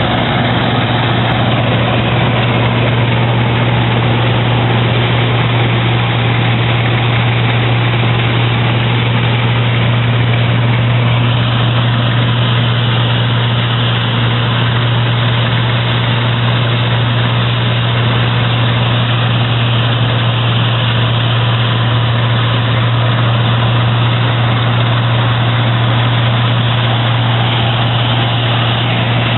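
Claas Dominator 80 combine harvester running, a loud, steady engine and machinery drone with a strong low hum.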